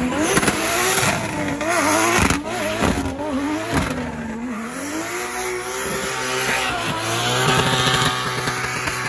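Drift car's engine revving up and down as the car slides sideways with its rear tyres spinning and squealing. The revs steady and hold high from about halfway through.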